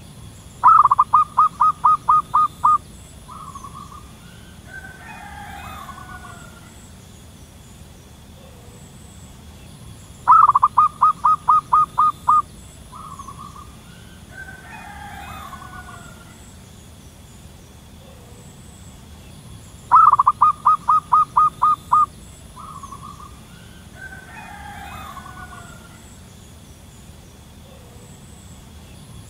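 Zebra dove calling: a quick run of about eight clipped cooing notes lasting about two seconds, then a single short note, repeated three times about ten seconds apart. Fainter, more warbled bird calls come between the runs.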